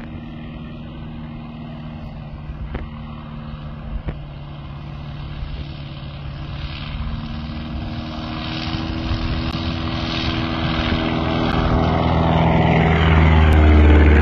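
Fokker Dr.I triplane's engine and propeller droning as it flies in low, growing steadily louder as it approaches; near the end it passes close overhead and the pitch drops.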